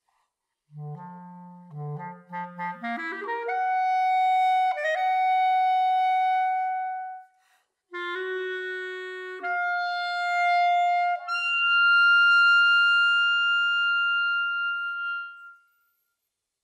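Solo clarinet playing unaccompanied: a few low notes, then a quick rising run up to a long held note. After a short break it climbs through two more notes to a long, high held note that fades away.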